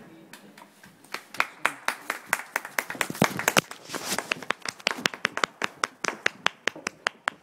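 Hands clapping close to the microphone, quick and even at several claps a second, applauding a finished jumping round.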